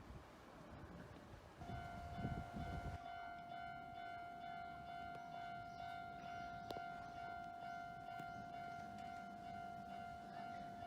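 Japanese railway level-crossing warning bell starts up about a second and a half in and keeps ringing steadily, signalling that a train is approaching. A brief low rumble comes just after it starts.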